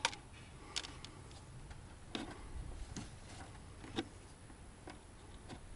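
A few light, irregular clicks and taps as wiring connectors and a small hand tool are handled at the engine, about one a second.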